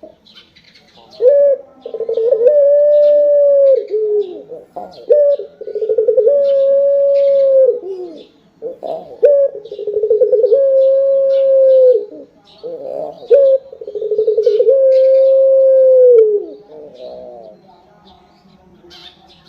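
Ringneck (Barbary) dove cooing: four repeated calls, each a short rising note followed by a long, level coo that falls away at the end. Faint chirps of small birds run behind.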